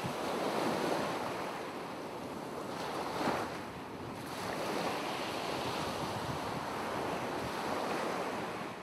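Ocean surf sound effect: a steady wash of waves, swelling briefly about three seconds in.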